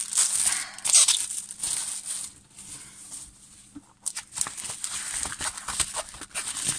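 Plastic wrapping crinkling and rustling as a diamond painting canvas in its clear plastic sleeve is pulled out and handled, in irregular bursts with a quieter stretch in the middle.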